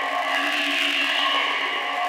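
Ambient background music: layered, sustained tones with a long echo and no beat.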